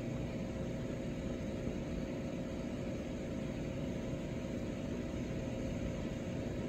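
Steady low background hum with a faint constant whine, the even drone of a running appliance or fan in the room.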